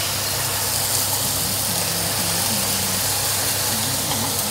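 Canned stewed pork belly and its gravy hitting a hot oiled steel wok and frying with a steady, even sizzle, over a low steady hum.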